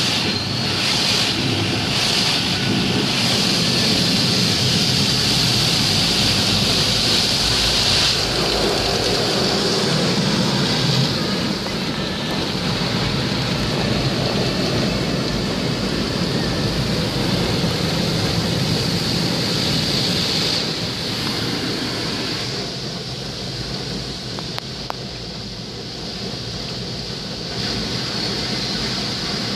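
Automatic car wash heard from inside the car's cabin: rotating brushes scrubbing and water spraying against the windscreen and body make a loud, steady rushing noise. It starts suddenly and eases off for a few seconds about three-quarters of the way through before picking up again.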